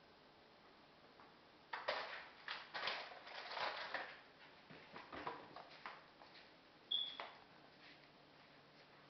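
A kitten scuffling and pouncing in crinkly packaging: a run of rustling, crackling bursts from about two seconds in that dies away by about six seconds, then a single short high squeak about seven seconds in.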